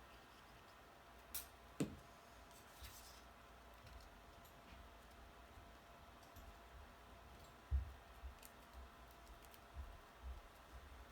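Faint handling of cardstock pieces on a tabletop: scattered light clicks and taps, with two sharper ticks early and a single low knock about eight seconds in.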